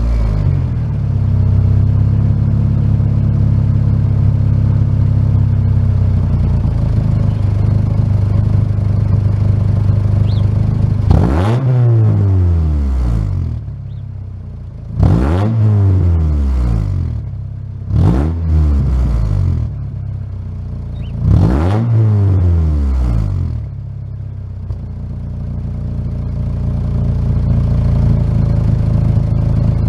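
Exhaust of a 2.0-litre four-cylinder engine with a shorty header, the catalytic converter deleted and a DC Sports muffler, idling steadily, then blipped four times in quick rising-and-falling revs about eleven, fifteen, eighteen and twenty-one seconds in, before settling back to idle.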